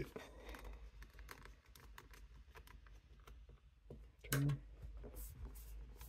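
Faint, irregular small clicks and ticks of a precision screwdriver driving the last screw into a laptop's metal bottom cover, with a short hum of voice about four seconds in.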